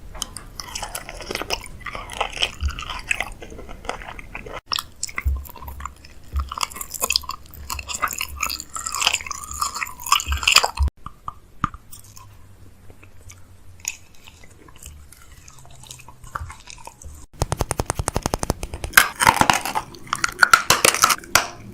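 Close-up cooking and food-handling sounds in several short cut-together takes: irregular crunching, crackling and clicking. Near the end comes a quick run of even ticks.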